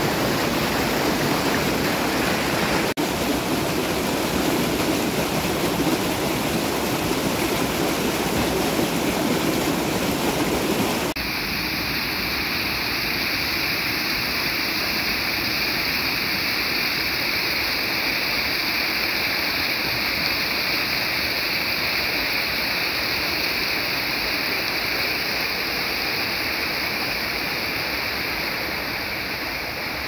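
Fast stream of white water rushing over rocks, a steady loud rush. Its tone changes abruptly about eleven seconds in.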